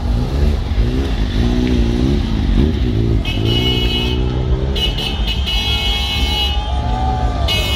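Car horns honking in repeated long blasts, starting about three seconds in, over the steady rumble of engines in a street traffic jam; this is celebratory honking. Before the horns, a motorcycle engine runs close by, its pitch rising and falling.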